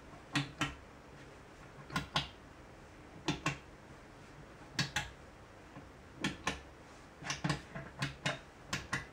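Metal momentary push buttons on a stainless-steel panel being pressed one after another, each press giving a quick pair of sharp clicks. About eight presses, coming faster near the end.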